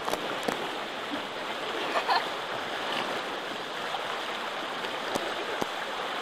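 Water rushing steadily along the hull of a small sailing catamaran under way, mixed with wind noise, with a few sharp clicks or knocks.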